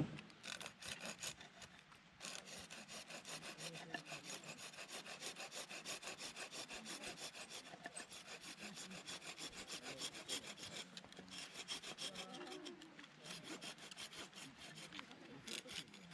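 Hand saw cutting wood in quick back-and-forth strokes, about four or five a second, with a short pause a little past the middle before the sawing resumes.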